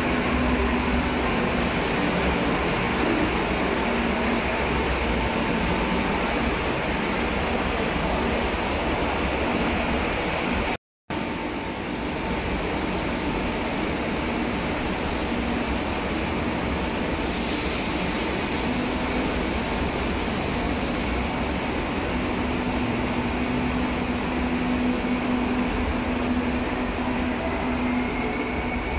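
Madrid Metro Serie 2000 electric train running in an underground station: a steady rumble of running noise with an even electric motor hum, two brief high squeals, and a faint whine rising near the end.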